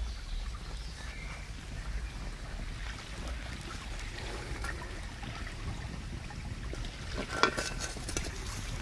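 Campfire burning over embers with a steady hiss and scattered small crackles. About seven seconds in, a sharp clank as a metal pan is set down upside down over a clay dish on the coals.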